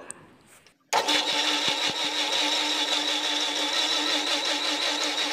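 Electric kitchen mixer grinder switched on about a second in, its motor running steadily at high speed as it blends chopped mango and curd in the lidded jar.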